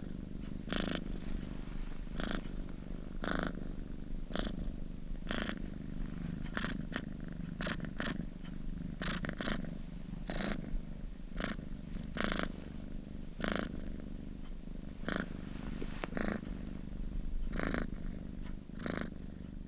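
Domestic cat purring steadily and close up. A low continuous rumble carries a brief raspy accent about once a second.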